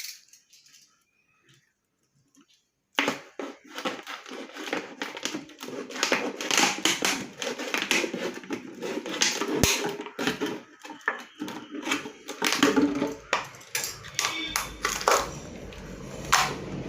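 Thin plastic mineral water bottle being cut with a blade and handled, a dense run of irregular crackles and clicks. It starts about three seconds in, after a near-silent stretch.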